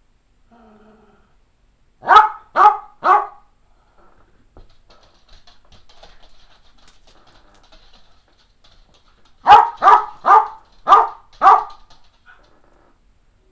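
Cairn terrier barking for play: three sharp barks in quick succession about two seconds in, then a run of five more later on.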